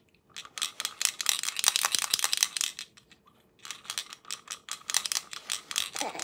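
Rapid crackling, rattling clicks in two stretches of about two and a half seconds each, with a short pause between them.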